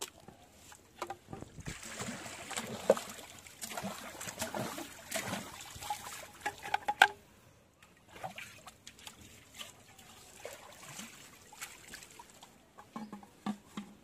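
Wet splashing and sloshing with many short knocks and clicks. It is busiest and loudest in the first half, then thins to scattered, fainter splashes and clicks.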